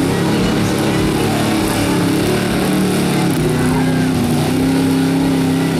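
Stock gasoline pickup truck's engine running hard under load as it drags a weight-transfer sled, its note wavering and stepping in pitch a couple of times.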